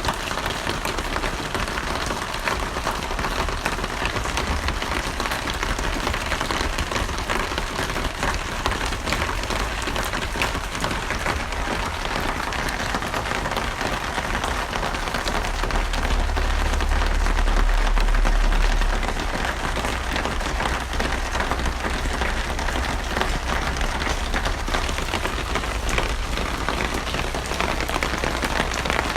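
Steady heavy rain, a dense patter of drops hitting a surface. About halfway through, a deep low rumble swells for a few seconds and fades again.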